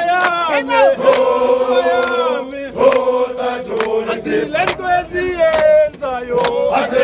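Crowd of men singing a struggle song (gwijo) together in chorus, with sharp hand claps along with the singing.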